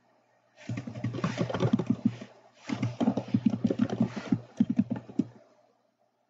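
Rapid typing on a computer keyboard: two quick runs of keystrokes with a short pause between them, starting about a second in and stopping about five seconds in.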